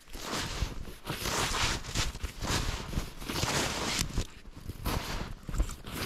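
Footsteps crunching through deep snow in an even walking rhythm, about one step a second.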